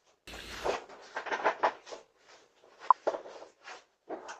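A thump about half a second in, then a run of irregular scuffs, rustles and clicks with one sharp click near three seconds, picked up by a doorbell camera's microphone.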